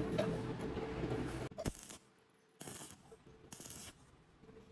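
Stick (arc) welding tacks: several short bursts of arc crackle, each well under a second, with gaps between. Before them, in the first second and a half, a steady hum and small metal sounds as the nut and bolt are handled.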